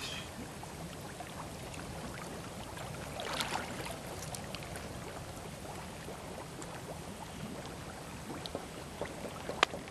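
Lake water sloshing and lapping around people wading with a netted carp, with a brief louder splash about three and a half seconds in and a sharp click near the end.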